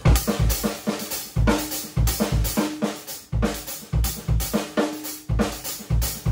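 Drum kit playing a linear groove on hi-hat, snare and bass drum, one voice at a time in a steady repeating pattern, with deep bass-drum thumps among sharp snare and hi-hat strokes.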